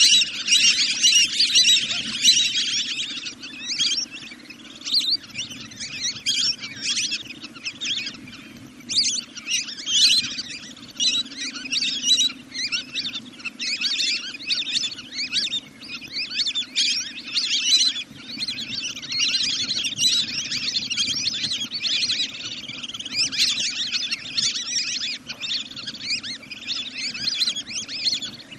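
A dense, continuous run of rapid high-pitched bird chirps and calls, repeated over and over as a lure call for birds at night, over a steady low drone.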